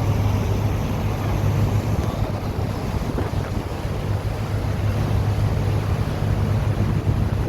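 A boat's engine droning steadily under wind buffeting the microphone and the rush of water.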